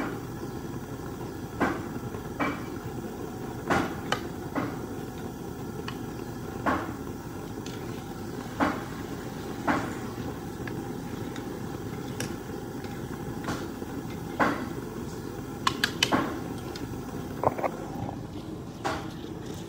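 Scattered sharp knocks and clicks, about a dozen at irregular intervals, over a steady low rushing noise.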